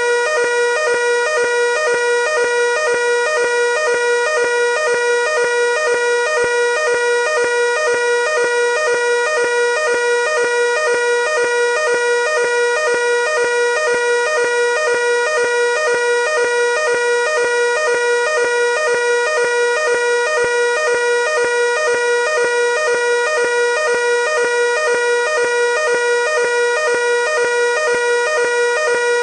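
Fire alarm evacuation signal sounding without a break: a loud, steady pitched alarm tone pulsing rapidly and evenly.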